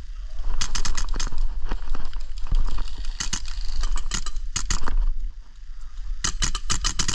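Airsoft rifle, an HPA-powered MTW replica, firing a series of short rapid bursts, with a dense burst near the end.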